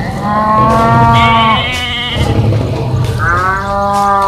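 Two long bleating calls, each about a second and a half, one at the start and one near the end, over a low pulsing background.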